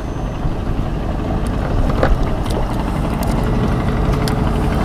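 Engine of a passing river boat running steadily, growing slightly louder.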